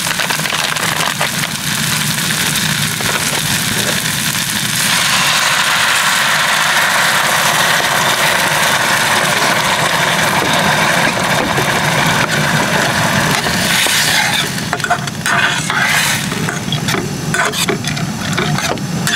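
Portable gas-canister stove burning under a steel frying pan of simmering pasta: a steady hiss that grows louder about five seconds in. Near the end a spatula scrapes and clicks in the pan.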